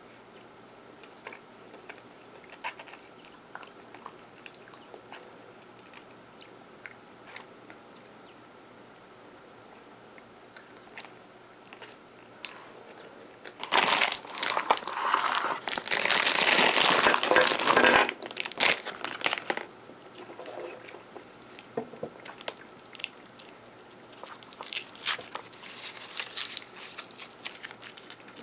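Soft chewing and small mouth clicks from eating a caramel-filled chocolate. Then, about halfway through, a clear plastic candy bag of foil-wrapped Hershey's Kisses is handled and crinkled loudly for about five seconds. Lighter crinkling near the end comes as a Kiss is unwrapped from its foil.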